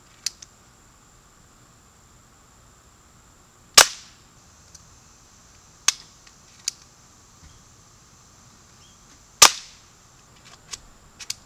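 Crosman Marksman air pistol firing pellets: two sharp cracks about five and a half seconds apart, with several smaller clicks between and after them.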